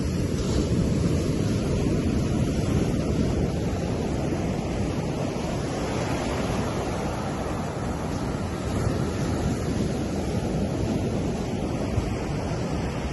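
Ocean surf breaking on a sandy beach: a continuous rushing wash of waves, swelling louder over the first few seconds as a wave breaks, then a steady rush.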